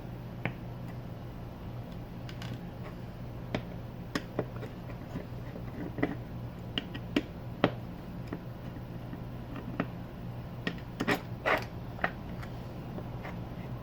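Scattered small clicks and taps of tools and electronic components being handled on a repair bench, with the loudest cluster about eleven seconds in, over a steady low hum.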